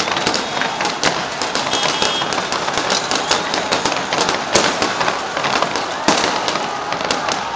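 Many sharp cracks in quick, irregular succession, several a second, over the dense noise of a large crowd.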